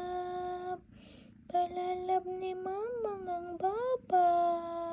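A woman humming a lullaby in long held notes with small rises and falls in pitch, breaking off briefly about a second in.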